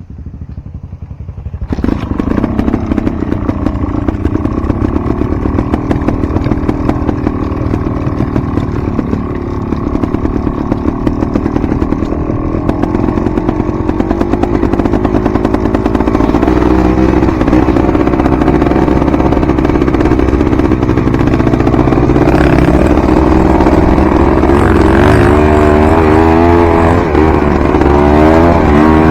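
Dirt bike engine running while riding off-road: it picks up about two seconds in, then revs rise and fall as the throttle is worked, with quicker, busier rev changes in the last several seconds.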